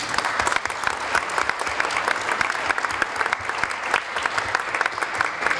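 Members of parliament applauding in a large assembly chamber: steady, dense clapping from many hands, greeting the end of a speech.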